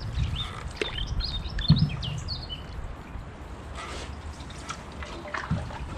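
Small birds chirping in short, quick phrases over water dripping and splashing from a canoe paddle, with a few light knocks and a low rumble of wind on the microphone.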